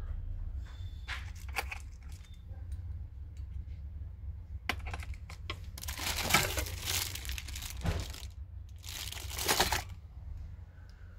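Rustling, crinkling noise over a steady low hum: a few short clicks, then two longer rustles about three seconds apart in the second half.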